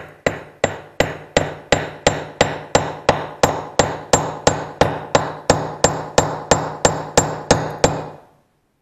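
Hammer striking a brass plate to drive an ebony wedge into the slot in a wooden tomahawk handle. The blows are steady and even, about three a second, each with a short metallic ring, and they stop about eight seconds in.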